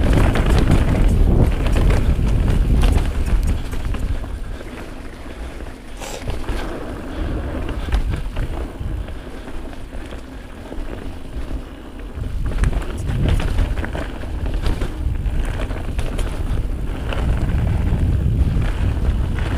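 Wind rushing over the camera microphone as a Giant Trance Advanced mountain bike descends a dirt trail fast, with knobby tyres rumbling and the bike clattering sharply over rocks and roots. The rush dies down about four seconds in and builds again from about twelve seconds.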